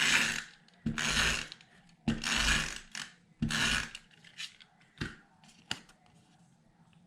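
Adhesive tape runner drawn across paper in four strokes of about half a second each, with a ratcheting sound, followed by a few light clicks as the pieces are handled.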